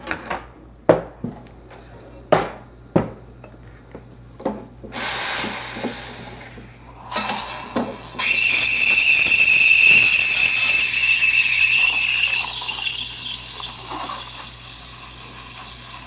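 Clinks and knocks of a steel milk pitcher being handled, then the Rancilio S24 espresso machine's steam wand opened in bursts of loud hissing, the longest about four seconds with a steady whistling tone: the wand being blown through before the milk is steamed.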